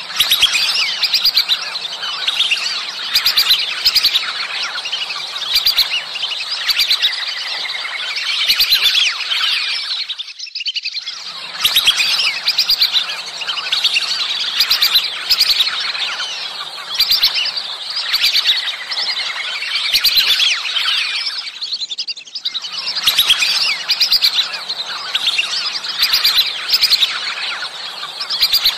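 A flock of whistling ducks calling: many high, thin whistles overlapping in a continuous chorus, with brief lulls about ten seconds in and again about twenty-two seconds in.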